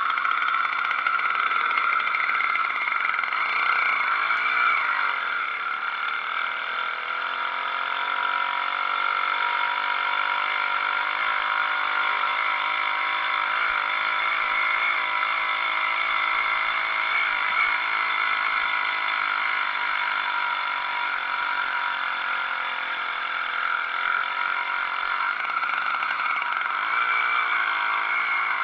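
80cc two-stroke motorized-bicycle engine running steadily while riding. Its pitch dips and rises a few seconds in and again near the end as the revs change.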